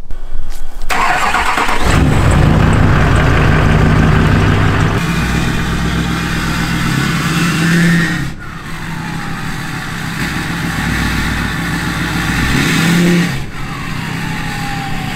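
LLY Duramax 6.6-litre V8 turbodiesel with a 64 mm turbo starting up about a second in and running as the truck is moved. A turbo whistle falls in pitch twice, once about eight seconds in and again near the end.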